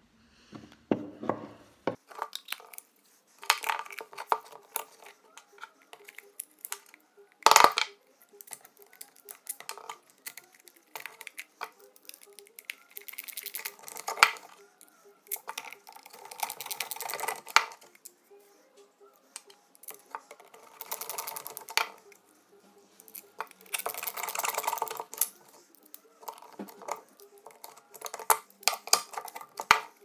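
Plastic washing-machine drain pump parts being handled and reassembled: clicks, knocks and rattles of the parts and tools on a wooden bench, with one loud knock about a quarter of the way in. Several stretches of fast clicking come as a hand screwdriver drives the pump housing screws back in.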